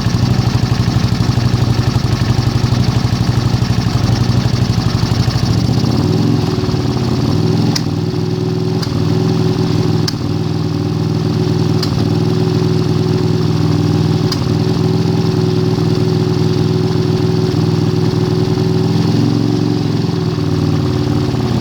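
Honda CX500's liquid-cooled V-twin engine running with a burping exhaust note. It pulses unevenly at first, then about six seconds in settles into a steadier, smoother tone.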